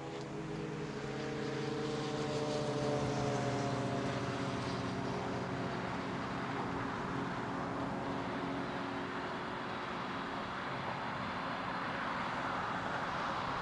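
A passing vehicle's engine hum, several steady tones sliding slightly lower and fading over the first few seconds, then a rushing noise building toward the end.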